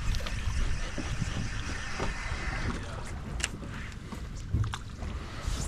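Wind on the microphone over a low, steady rumble aboard a small fishing boat, with a couple of light clicks past the middle.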